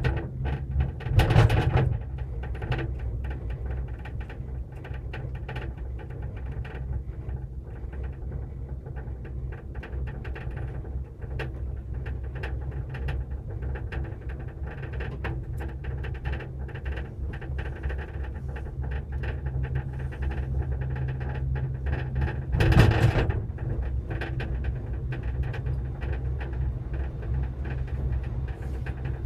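Inside a gondola cabin running along its cable: a steady low hum with small clicks, and twice, about a second in and again about 23 seconds in, a louder clattering rumble as the cabin rolls over the sheaves of a support tower.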